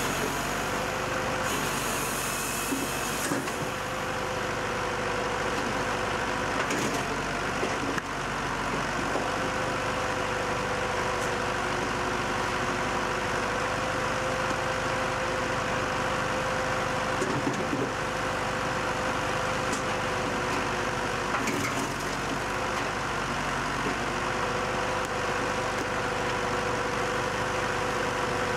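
Tajfun firewood processor running off a tractor: a steady engine and machinery drone with a continuous whine that cuts out briefly twice, with a few short knocks.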